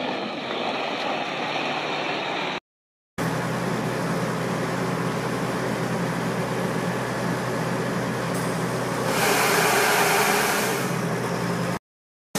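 Airport crash tender's diesel engine and pump running steadily, and about two-thirds of the way through a loud rushing hiss of water comes in for a couple of seconds as the roof turret sprays. The sound cuts out briefly twice.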